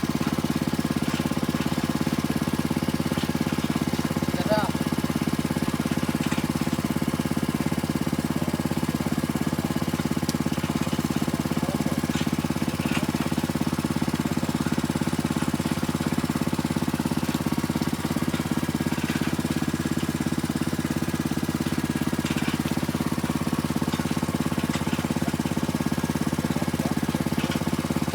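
Engine of a deep-well drilling rig running steadily at constant speed.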